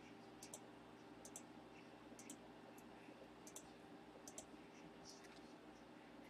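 Faint clicks of a computer mouse and keyboard, several coming in quick pairs, over a low steady electrical hum.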